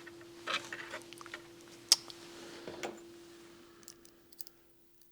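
Scattered small clicks and rustling of hands handling a glass fuse and fuse holder, with the sharpest clicks about half a second, two seconds and three seconds in, over a faint steady hum. The handling dies down to a few faint ticks near the end.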